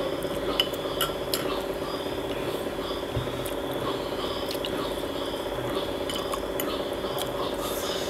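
A metal spoon and chopsticks clinking and scraping against a glass bowl of noodle soup during eating, with about a dozen light, irregular clinks. Under them runs a steady hum.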